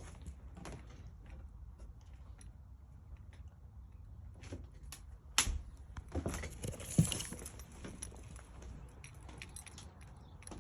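Footsteps with scattered small knocks and rattles, and a louder cluster of thumps and rustling about halfway through.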